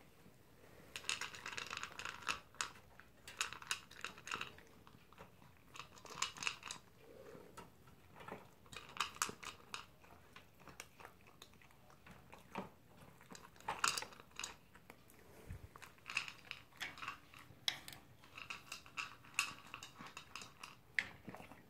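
A poodle eating from its bowl, crunching and chewing its food in short bursts with brief pauses between mouthfuls.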